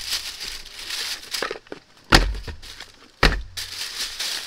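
Thin plastic shopping bag rustling and crinkling as cardboard parts boxes are pulled out of it, with two sharp knocks about two and three seconds in.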